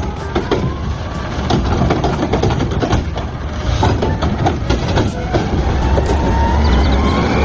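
Garbage truck engine running with a heavy low rumble and many clanks and knocks.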